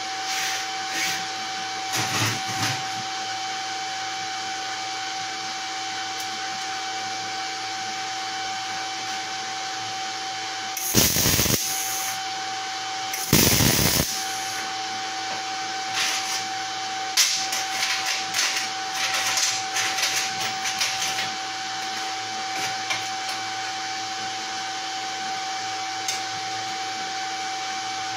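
A welding machine's cooling fan running with a steady hum. Two short MIG tack welds, each about a second of arc crackle, about 11 and 13 seconds in, tacking the plates of a test coupon. A series of short clicks and knocks follows a few seconds later.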